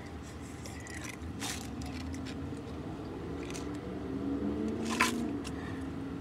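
Eating and drinking noises close to the microphone: wet chewing and mouth sounds, then a drink from a cup, with a sharp click about five seconds in.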